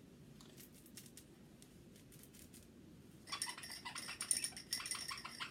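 Lamaze Morgan the Monkey soft baby toy being handled and shaken: faint crinkling at first, then from about three seconds in, some two seconds of rapid crinkling with a high squeak.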